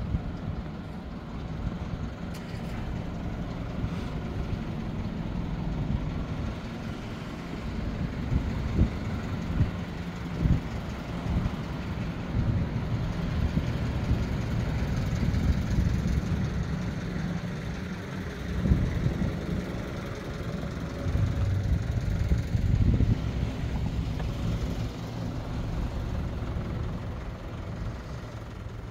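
City street ambience: road traffic running past, heard as a steady low rumble with a few brief louder bumps.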